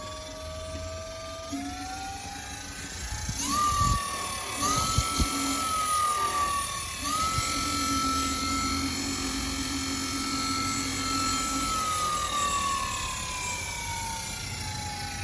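Kaabo Wolf King electric scooter's rear hub motor whining as the freshly re-tired wheel is test-spun: the pitch climbs in a few steps with the throttle over the first seven seconds, holds steady, then slowly falls as the wheel coasts down. A few light knocks come about four to five seconds in.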